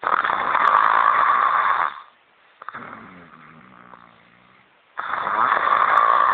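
A woman snoring: two loud rasping snores about five seconds apart, each lasting about two seconds, with a quieter humming breath between them.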